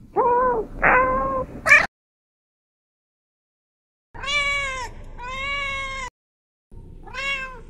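Domestic cats meowing: three meows in quick succession, then after a pause two longer meows and one more near the end, each rising and falling in pitch.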